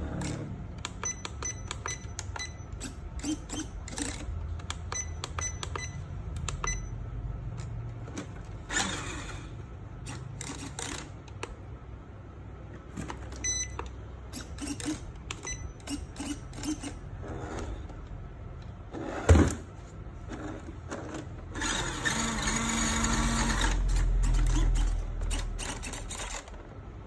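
Scattered plastic clicks and knocks from a 1/14-scale RC off-road truck being handled and moved on a wooden floor, with one sharp knock about two-thirds of the way through. Near the end its small electric drive motor and gears run steadily for about four seconds.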